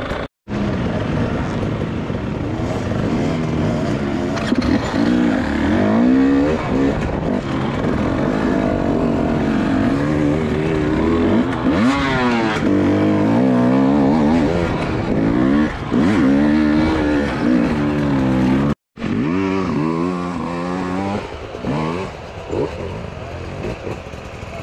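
Dirt bike engine revving up and down as the throttle is worked over trail terrain, its pitch rising and falling repeatedly. The sound cuts out completely for a moment just after the start and again about three-quarters of the way through.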